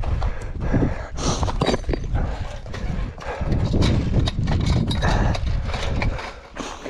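Mountain bike ridden over rough trail ground: tyres, wheels and frame clattering in dense, irregular knocks over a steady low rumble.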